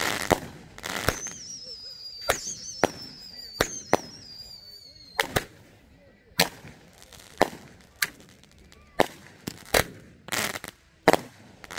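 Consumer aerial fireworks going off: a string of sharp bangs, about one a second in the second half, with fizzing crackle as the stars burst. A long high whistle slides slowly down in pitch over the first few seconds.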